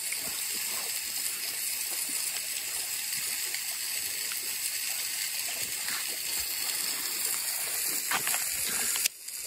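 Steady rushing background noise with a few faint taps; it breaks off briefly near the end.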